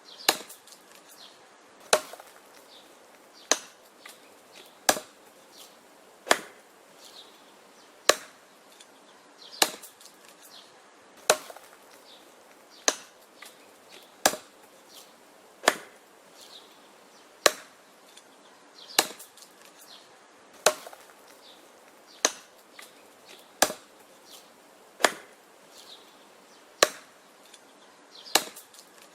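Wood being chopped: a steady rhythm of sharp, dry blows, one about every second and a half, with fainter little knocks between the blows.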